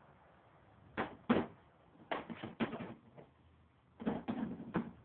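A series of short knocks and clunks in small groups of two or three, like hard objects being handled and set down.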